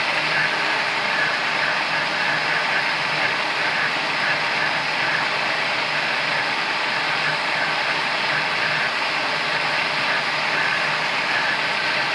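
Countertop electric blender motor running steadily, blending a milk and papaya mixture in its jar.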